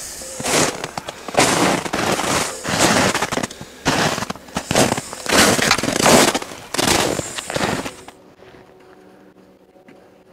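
Loud, uneven scrapes and crackles of a jacket's fabric rubbing on the camera microphone as the camera is handled, coming about every half second. The noise cuts off suddenly about eight seconds in.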